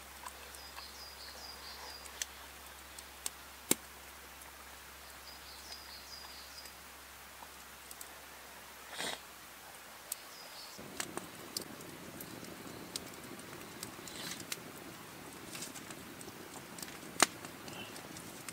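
Quiet woodland ambience: a small bird gives short, high chirping phrases a few times in the first half, over scattered sharp clicks and snaps. About ten seconds in, the background shifts abruptly to a fuller hiss, with a small campfire crackling and popping.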